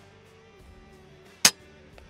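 A single sharp shot from an FX Impact M4 PCP air rifle about one and a half seconds in, over quiet guitar background music.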